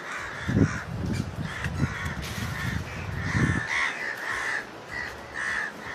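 Crows cawing repeatedly in short harsh calls, with a few soft low thuds as taro leaves are handled on the ground.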